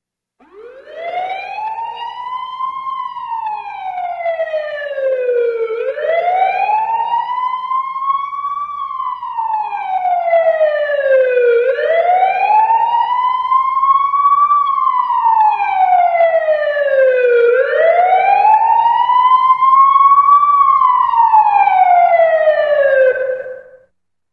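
Police car siren on its slow wail. The pitch climbs for about three seconds and falls for about three, four times over. It grows louder through the first cycles and dies away near the end.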